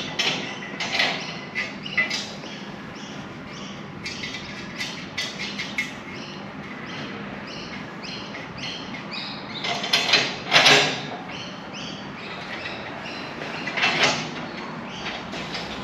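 Intermittent metallic clanks, clicks and rattles from hands-on work on a four-post car lift's steel parts. A quick run of small ticks comes about four to six seconds in, and the loudest clanks come about ten and fourteen seconds in.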